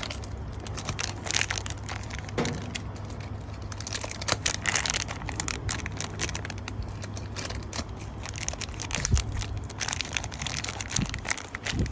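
Hand handling of small parts: irregular plastic crinkling, clicks and scrapes as a new water filter is fitted into the water heater's inlet, over a steady low hum.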